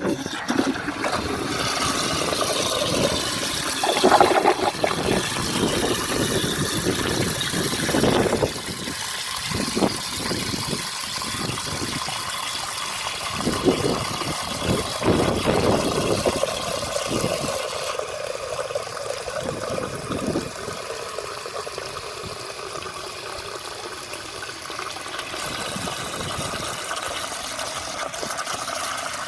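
Restored cast iron high-level cistern being flushed: a sudden loud rush of water through the siphon and down the flush pipe for about eight seconds, then gurgling and splashing as the flush tails off, then a steadier, quieter hiss as the float valve refills the cistern.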